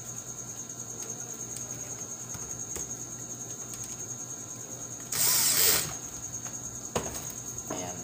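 Handling of a magnetic contactor and its wiring on a workbench: a brief harsh burst about five seconds in, then a sharp click about two seconds later. A steady high whine sits under both.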